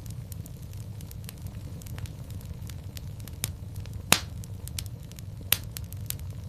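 Fire in a fireplace crackling, with a steady low rumble of flames, many small snaps and two loud pops about four and five and a half seconds in.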